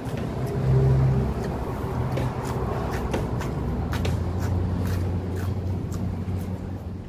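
Steady low rumble of road traffic with engine hum, one vehicle briefly louder about a second in. Over it come frequent short, crisp crunches of raw lettuce and greens being bitten and chewed.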